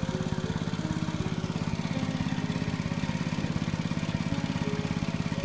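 A small engine running steadily with a fast, even pulse, under background music playing a simple stepping melody.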